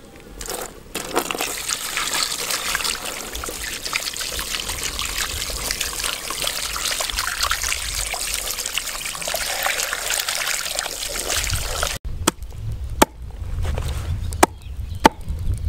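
Water splashing and trickling in a plastic basin as hands scrub skinned cow legs. It cuts off about twelve seconds in, and a cleaver chops four times into a cow's leg on a wooden chopping block.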